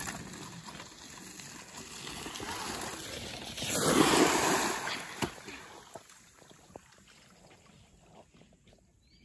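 A Mongoose bicycle ploughing through a muddy puddle: water splashing and sloshing, loudest in a rush about four seconds in, then faint sloshing and scattered clicks as the rider bogs down in the mud.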